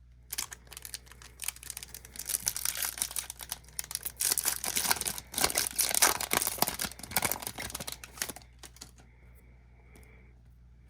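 Foil trading-card pack wrapper being torn open and crinkled by hand, a dense crackling rustle that stops about eight and a half seconds in.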